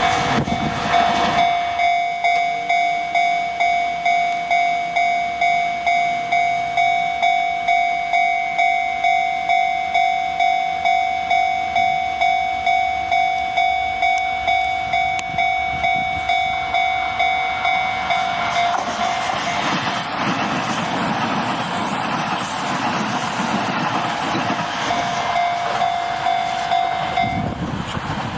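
Japanese railway level-crossing warning bell ringing steadily at about two strikes a second. About two-thirds of the way in, a Shin-Keisei train passes over the crossing, and its loud rushing noise largely covers the bell. The bell is heard again briefly before both stop near the end.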